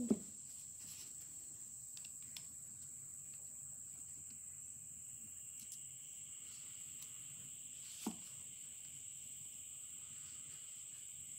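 Faint clicks of a screwdriver and small screws being handled while the fiber gear of a 1901 Victor M phonograph motor is taken apart, with one sharper click about eight seconds in. A steady high-pitched whine runs underneath.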